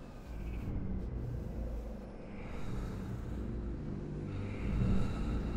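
Wind turbine's low drone and rumble, swelling with a soft whoosh about every two seconds as the blades sweep past.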